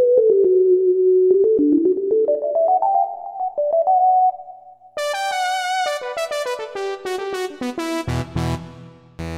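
A Yamaha S03 synthesizer played: a mellow single-line melody that climbs slowly, then about halfway through a switch to a much brighter voice playing a falling run, with deep low notes near the end.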